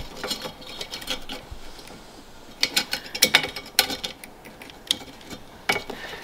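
Plastic fan frame and thin wire fan clip of a Cooler Master Hyper 212 Black Edition cooler clicking and rattling in the hands as the fan is fitted against the aluminium fin stack. A quick run of sharp clicks comes about halfway through, with a couple of single clicks after.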